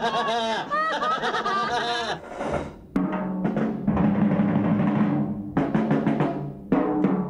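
High wavering voice sounds for about two seconds, then a drum kit played with sticks, a run of loose hits over steady low music tones.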